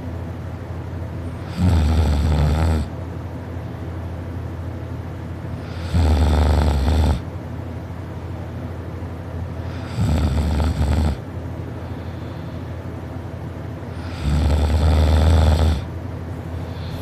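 A person snoring loudly in sleep: four snores about four seconds apart, each lasting a second or so, over a steady low hum.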